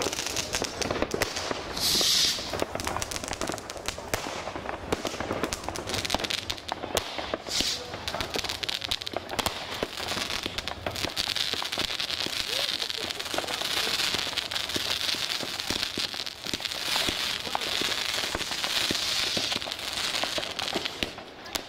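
Many fireworks and firecrackers going off across a town: a dense, continuous crackle of bangs, with a louder burst about two seconds in.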